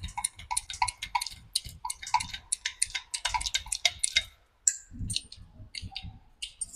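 Hand-pumped hydraulic crimping tool working on a cable lug, its pumping handle and ratchet making a quick run of light clicks for about four seconds, then fewer, sparser clicks.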